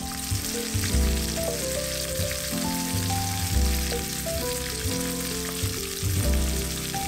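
Sliced onion and carrot sizzling in hot oil in the pot of a Cook4me electric multicooker, the sizzle starting as they land in the pot to be sautéed. Background music with a bass line plays over it.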